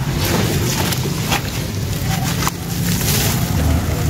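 Hands squeezing and crumbling wet, gritty sand-and-dirt mud, letting it fall back in clumps and trickles into a tub of muddy water: a continuous wet gritty splashing, with a couple of sharper crunches about a second and two and a half seconds in.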